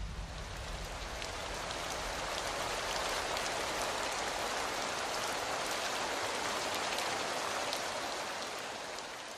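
Steady rain falling, with scattered drop ticks. It swells in over the first few seconds and fades out near the end.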